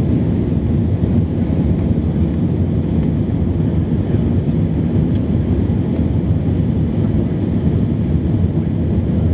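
Steady cabin noise of an easyJet Airbus A320-family jet airliner climbing after takeoff: engine and rushing air noise heard from a seat over the wing, a deep, even rumble that does not change.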